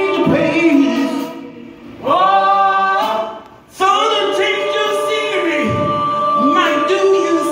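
A group of men and women singing together in harmony on long held notes, with breaks in the singing about a second and a half in and again around three seconds in.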